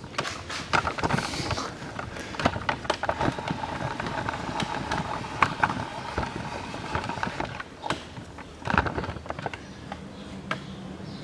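Hand tools and metal parts clicking and knocking in irregular, sharp strikes while being handled on a car engine, with a louder flurry about nine seconds in.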